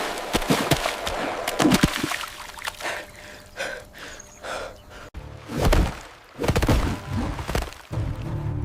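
Cinematic background music with a series of thuds and knocks mixed in, cut off abruptly about five seconds in.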